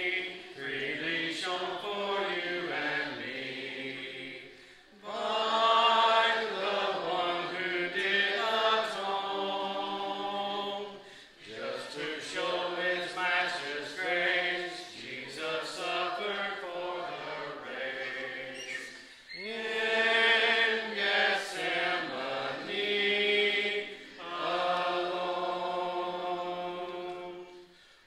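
A congregation singing a hymn a cappella, many voices holding long notes together in phrases with short breaks for breath.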